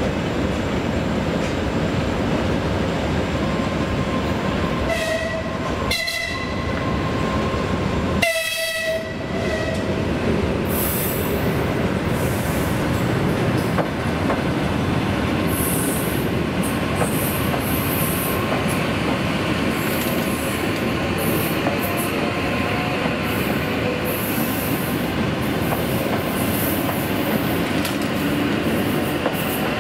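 EP2DM DC electric multiple unit departing and running past: its horn sounds two short blasts and then a longer one, over the train's steady running noise. After the horn, as the cars go by, there is intermittent high wheel squeal along with the rolling noise.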